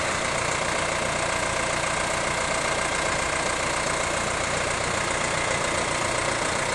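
New Holland T4050 tractor's diesel engine idling steadily.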